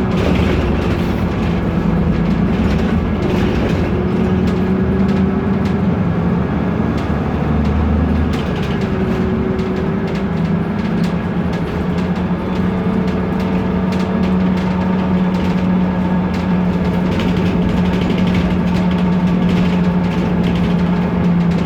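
BMC Procity city bus under way, its Cummins ISB turbo diesel running with a steady drone. Over it come frequent rattles and clicks from loose interior parts and window glass.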